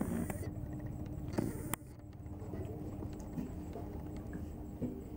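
Close-up eating sounds: chewing and mouth clicks as roast chicken is torn by hand and eaten, with a few sharper knocks over a faint steady hum.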